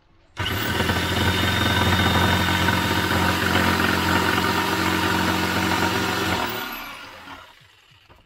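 Electric jigsaw cutting through a solid-wood worktop: it starts suddenly about half a second in and runs steadily for about six seconds, then is switched off and winds down.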